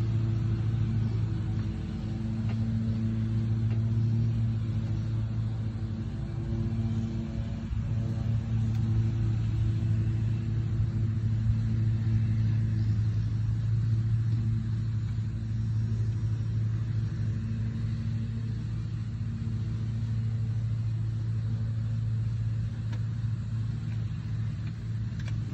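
An engine idling steadily nearby, a constant low hum with no revving.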